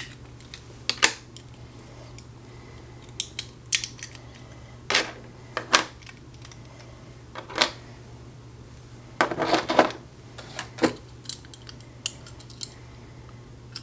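Scattered sharp clicks and clatters of small die-cast metal and plastic Hot Wheels car parts being handled and pried apart, with a quicker run of rattling clicks about nine seconds in. A faint steady hum lies underneath.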